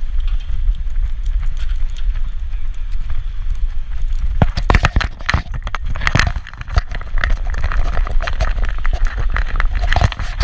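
Metal fittings on a small dog's harness jingling and clinking with his trotting steps, over a low rumble of wind and fur rubbing on a camera strapped to his back. A run of louder knocks and rattles comes about halfway through and again near the end.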